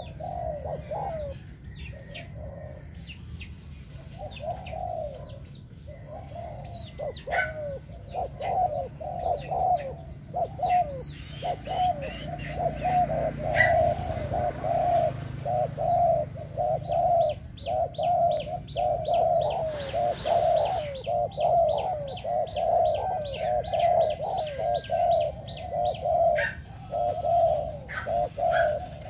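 A caged decoy dove cooing over and over in short low phrases. The calls are scattered at first and become steady, about two a second, from about halfway through. Small birds chirp thinly and high above the coos.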